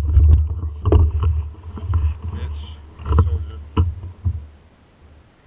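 Low, uneven rumbling with several sharp knocks and rattles, picked up through a handlebar-mounted camera as the mountain bike it is fixed to is moved and jostled; it dies down near the end.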